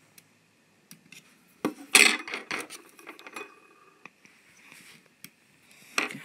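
Small clicks, taps and scrapes of metal tweezers and a small screwdriver against the plastic body of a model tram as wires are pressed into their clips. The loudest stretch of clicking and rubbing comes about two seconds in.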